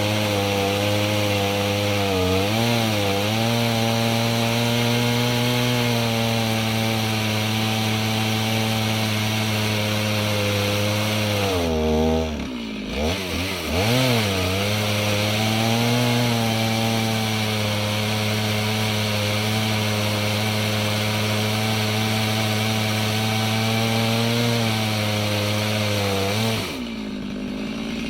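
Two-stroke chainsaw in a chainsaw mill ripping a log lengthwise, running steadily under load. Its engine note dips and wavers briefly about halfway through, then recovers, and drops lower near the end.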